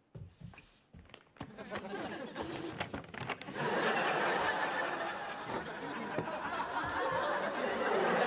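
Paper gift bag rustling as something is pulled out of it, then sitcom studio audience laughter that swells and becomes loud about three and a half seconds in.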